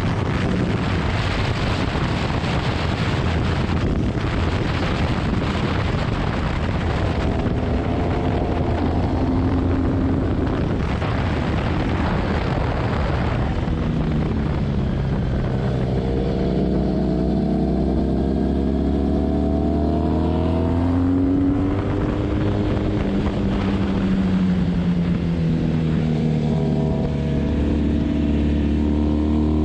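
Motorcycle engine running under load while riding fast, with heavy wind rush on the microphone. The wind rush covers most of the first half. From about halfway on, the engine note is clearer and its pitch rises and falls repeatedly.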